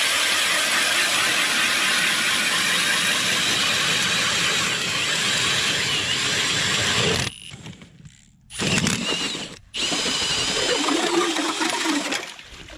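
Ice auger boring a hole through lake ice, a dense grinding and crunching of the blades cutting ice. It runs steadily for about seven seconds, stops, then runs again in two shorter spells before stopping near the end.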